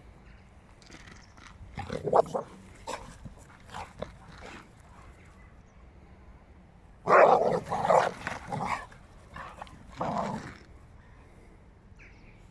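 Dogs play-fighting, giving bursts of barks and growls; the loudest cluster comes about seven to nine seconds in, with another short burst near ten seconds.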